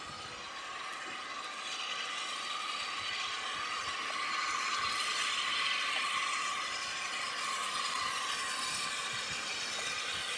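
Steam tank locomotive approaching under power with a steady hiss and running noise, growing louder over the first few seconds and then holding steady.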